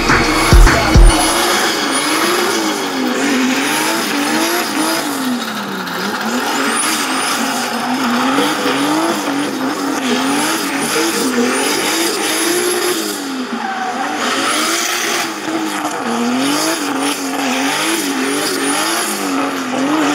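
Drift car engine revving up and down over and over as the throttle is worked through a slide, with tyres squealing and skidding.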